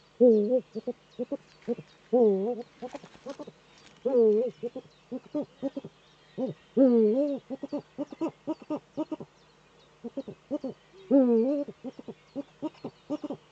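Male Eurasian eagle-owl calling in courtship: deep, wavering hoots about every two seconds, each under a second long, with quick runs of short staccato notes in between.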